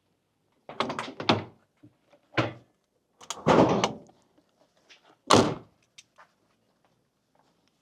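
A string of separate clunks and knocks, with the loudest a single slam about five seconds in, the sound of a door being worked and shut.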